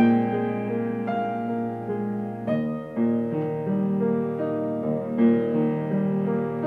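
Solo piano music: a melody over held chords, with a new note or chord about every half second to a second.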